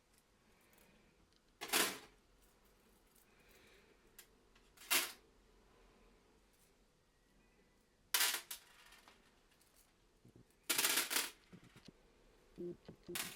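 Sharp clicks and clatters of parts and tools handled at a wheel-building bench. There are five of them a few seconds apart, and the one near the end is a longer rattle.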